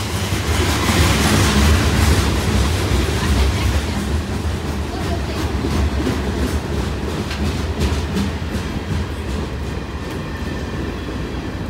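Freight cars rolling past close by: a steady heavy rumble with the clickety-clack of wheels over the rail joints, loudest a second or two in.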